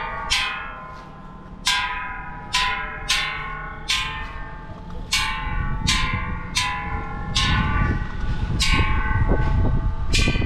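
A row of hanging bronze Thai temple bells struck by hand one after another, about a dozen strikes roughly a second apart. Each bell rings on with several tones and a different pitch from the last.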